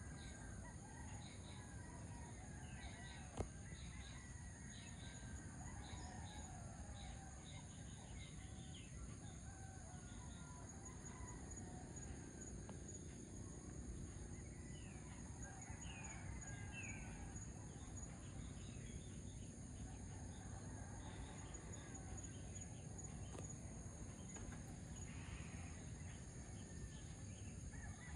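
Faint rural dawn chorus: roosters crowing and many small birds chirping, over a steady high-pitched whine. One sharp click sounds about three seconds in.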